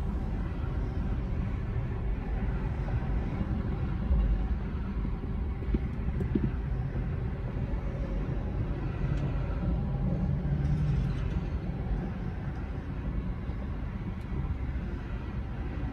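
Low, steady rumble of a car creeping in stop-and-go freeway traffic, its engine and road noise heard from inside the cabin.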